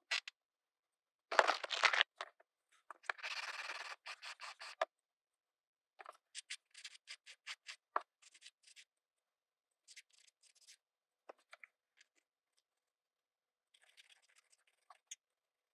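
Hand-held abrasive (file or sanding stick) rubbing along the edge of a 3D-printed plastic model wagon body, flattening off rough print-support marks. The strokes come in short bursts with pauses between; in the middle they run at about four strokes a second.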